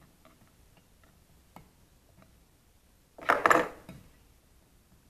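Small metal parts clattering briefly against the metal chassis of a bench power supply about three seconds in, after a few faint clicks, as hands work at unbolting its power transistor.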